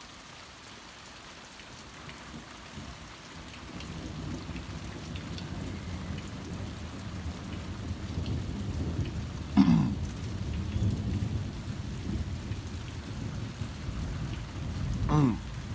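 Steady rain falling, with a long roll of thunder that swells from about three seconds in and keeps rumbling deep and low. A person's voice breaks in briefly twice, near the middle and near the end, and these are the loudest sounds.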